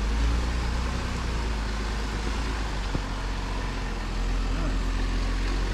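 Jeep engine running at a slow crawl on a rough off-road trail: a steady low rumble, with a single faint click about three seconds in.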